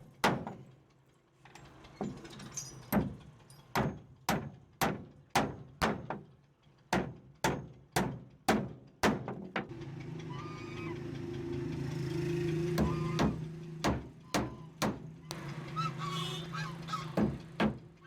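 Repeated sharp knocks of hand-struck blows, about two a second, with a brief pause partway through. A steady low machine hum comes up about ten seconds in and fades away a few seconds before the end.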